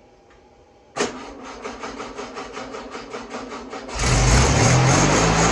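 Freshly rebuilt VW Beetle 1641cc dual-port air-cooled flat-four cranking on its starter, with a steady beat of about six strokes a second. About four seconds in the engine catches and runs loudly and steadily.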